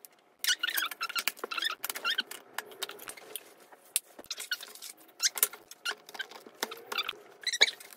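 Small plastic and wooden kit parts being handled and fitted together: a busy run of clicks and light knocks, with short squeaks of parts rubbing against each other.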